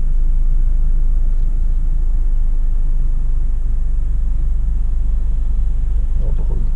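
Steady low rumble inside the cabin of a Mercedes-Benz C180 CGI at a standstill, its 1.8-litre turbocharged petrol four-cylinder idling.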